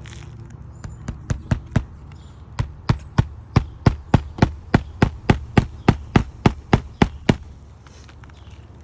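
Hand hammer striking on an asphalt-shingle roof in a fast, even series of about twenty sharp blows, three to four a second, with a few scattered blows first and a steady run after.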